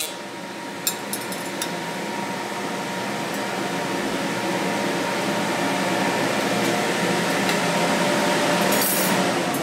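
TIG welder's cooling fans running steadily after the arc stops, with a few sharp pings and crackles, mostly about a second in and near the end, from the freshly welded cast pot-metal part as it cools: a bad sign, the weld is not bonding to the poor-quality metal.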